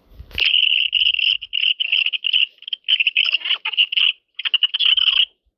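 A small sneeze recording sped up many times over until it no longer sounds like a sneeze: a high, buzzy, fluttering trill held at one pitch. It starts abruptly, breaks into rapid stutters with brief gaps, and stops shortly before the end.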